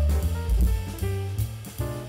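Background jazz music with a drum kit and a deep bass line.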